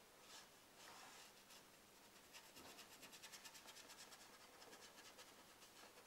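Faint scratching of a paintbrush scrubbing paint onto a painting board: a few separate strokes, then from about two seconds in a quick back-and-forth run of strokes, several a second.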